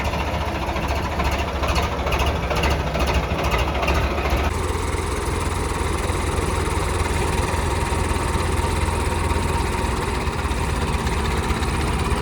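Tractor diesel engine running steadily with a deep rumble, the sound changing abruptly about four and a half seconds in.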